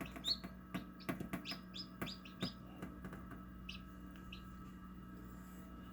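Newly hatched chicks peeping: a quick run of short high peeps with faint clicks for the first two and a half seconds, then two lone peeps, over a low steady hum.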